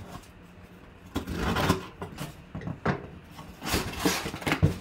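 Cardboard box being opened: a knife slitting the packing tape, then the cardboard flaps pulled open, a series of scraping, rustling sounds with a thump near the end.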